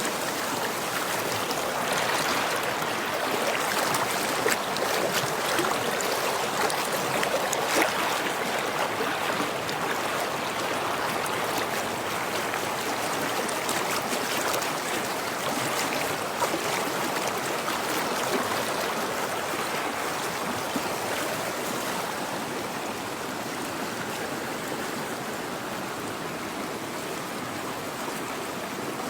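A woodland stream flowing steadily over rocks, a continuous rushing babble with small splashes scattered through it.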